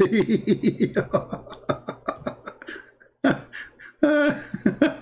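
A man's voice in a fast, even run of short syllables that fades away over the first two and a half seconds. After a short pause come a longer voiced sound and more quick syllables.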